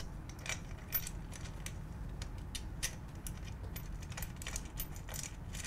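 Faint, scattered small metallic clicks and taps of a washer and locking nut being fitted by hand onto a screw through a shower chair commode's backrest and metal frame.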